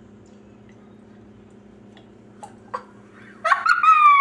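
A child's short, high-pitched squeal near the end, over a steady low hum, with a couple of faint clicks shortly before it.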